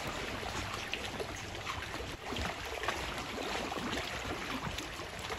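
Seawater lapping and trickling against a rocky shoreline: a steady wash with many small, irregular splashes and drips.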